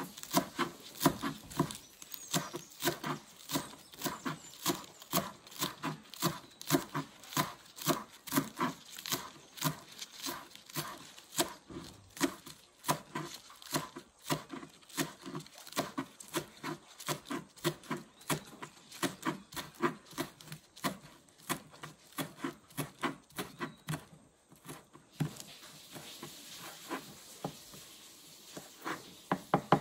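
Kitchen knife chopping green onion stalks on a wooden board, a steady run of sharp knocks about three a second, with a brief pause near the end before it picks up again.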